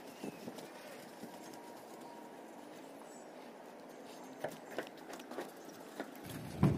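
Scattered light taps and knocks on a corrugated metal roof as a worker moves across it with a paintbrush and a plastic can of coating, with one louder thump near the end.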